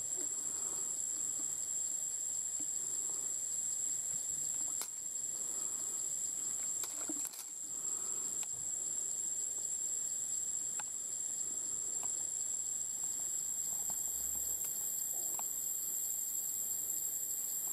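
Quiet forest ambience: an even, high-pitched drone runs throughout, with a few faint clicks scattered through it.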